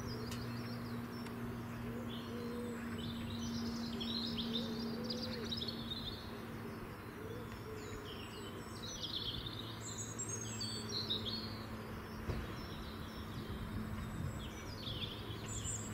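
Several small birds singing, with a busy mix of short high chirps and trills, over a steady low hum.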